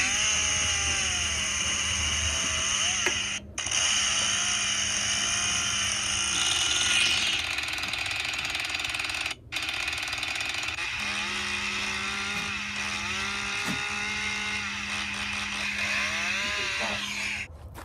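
A chainsaw running with a continuous mechanical rattle, cut off briefly twice, about three and a half and nine and a half seconds in.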